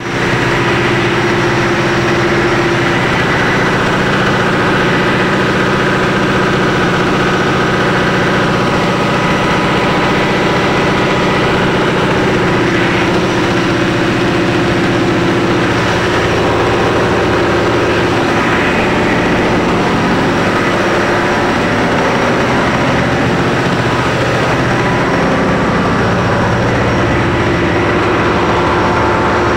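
Chinese-made ship's engine running steadily at a constant speed, heard close up in the engine room.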